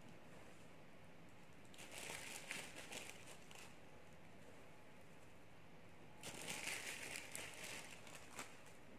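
Plastic bag of dried lavender crinkling as it is handled, in two short bursts: about two seconds in and again a little after six seconds.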